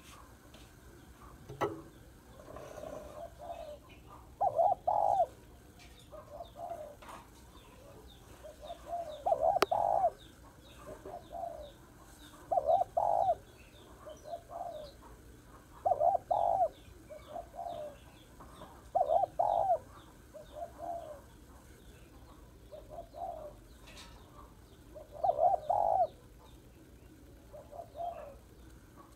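Spotted dove cooing: repeated phrases of low coos every few seconds, each ending in a louder, stronger coo.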